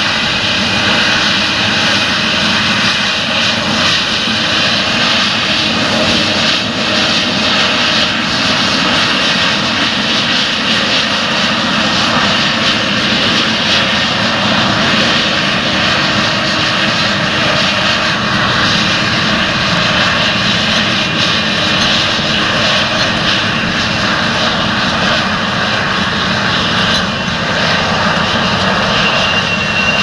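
Challenger MT775E rubber-tracked tractor's diesel engine running steadily under load, pulling a ten-furrow reversible plough through stubble.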